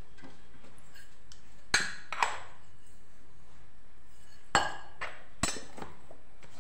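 Stainless-steel kitchen containers clinking, four sharp clinks each with a brief ring: two close together about two seconds in, and two more near the middle and past it.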